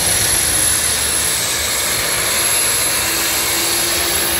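Modified pulling tractor running at full throttle as it drags the weight-transfer sled down the track: a loud, steady engine noise with a steady high whine on top.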